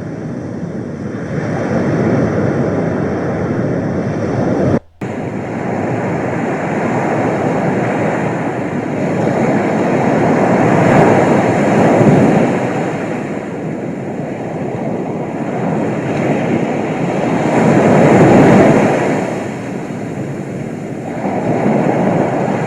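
Sea waves washing onto the shore as a continuous rush that swells and fades every few seconds. It cuts out for a moment about five seconds in.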